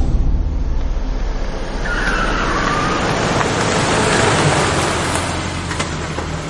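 A car pulling away and driving off, its engine and tyre noise swelling and then easing off, with a short squeal of tyres about two seconds in.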